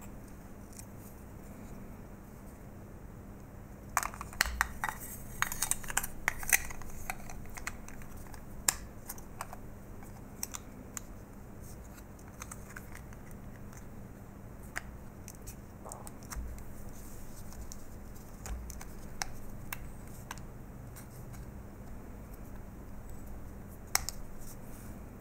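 Handling clicks, taps and scrapes of a hard plastic TI calculator battery pack case and its AA NiMH cells as they are fitted together, with a quick run of clicks about four seconds in and a single sharp click near the end.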